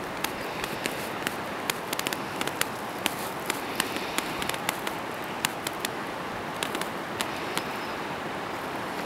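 Wild boar rooting and feeding in grass: irregular sharp snaps and crunches, several a second, over a steady background hiss.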